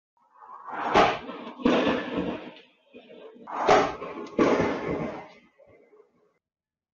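A car crashing into a kerb and planter: loud bangs with scraping and rattling. Two heavy hits come about a second in and two more near four seconds in, then the noise fades away.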